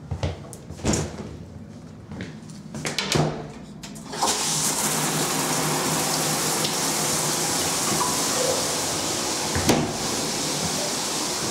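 A few knocks and clicks as the shower is handled, then water starts running from the shower about four seconds in and keeps running steadily, with a single click near the end.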